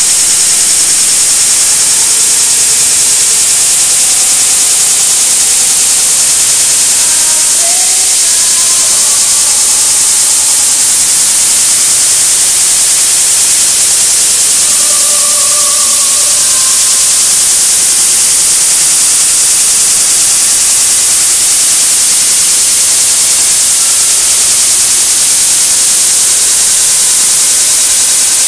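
Loud, steady static hiss that drowns the sound track, strongest in the high treble. Faint traces of a woman's singing voice show through it.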